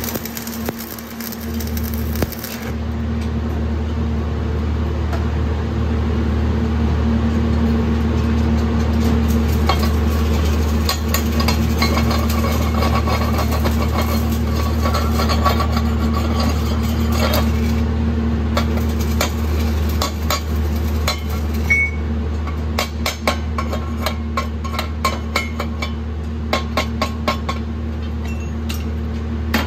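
A manual (stick) welding arc crackles and cuts out about two seconds in, over a steady low hum. Then come light metallic taps and knocks of a hammer chipping at the welded steel plates, growing into a quick run of taps near the end.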